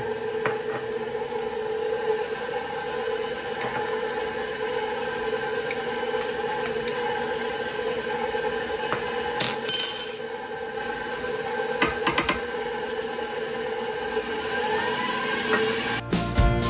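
KitchenAid stand mixer running at high speed, its wire whisk beating heavy cream in a stainless steel bowl with a steady motor whine. A few light clinks come partway through, and music comes in near the end.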